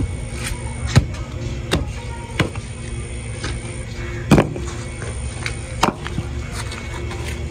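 A short-handled spade chopping into dry, stony soil: separate sharp strikes about a second apart, the loudest a little past four seconds in, over a steady low hum.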